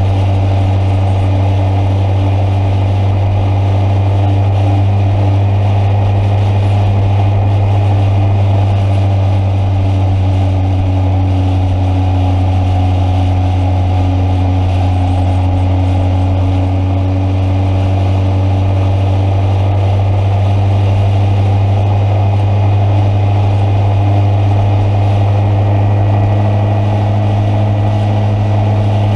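A vehicle engine running loud and steady at an even speed, with a constant low hum.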